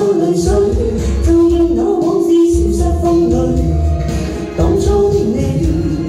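A man and a woman singing a duet into handheld microphones over amplified backing music with a steady bass beat. The voice holds one long note for about a second, a little over a second in.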